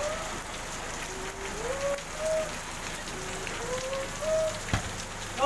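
Heavy rain falling on a wet asphalt street, a steady hiss, with one sharp knock near the end.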